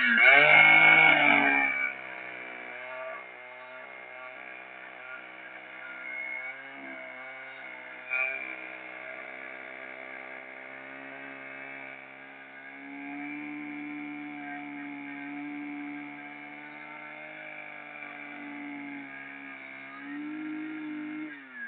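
Chainsaw engine revved hard at the start, dropping back after about two seconds to a steady idle that swells a little twice, then the engine dies away near the end.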